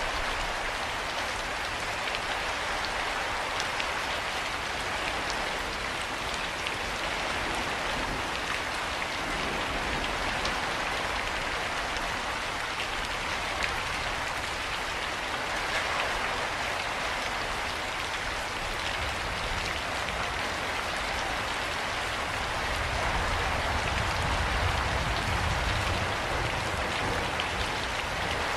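Steady heavy rain falling and pattering on surfaces, an even dense hiss. A low rumble swells for a few seconds near the end.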